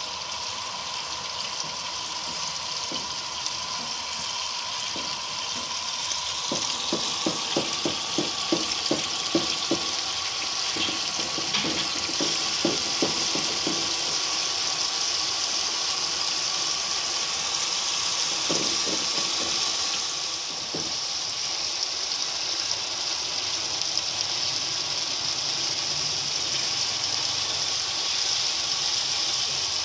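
Minced chicken and spice masala sizzling in oil in a non-stick frying pan, with a steady hiss. A silicone spatula stirs and scrapes it in a quick run of strokes from about six to fourteen seconds in, and briefly again near eighteen seconds.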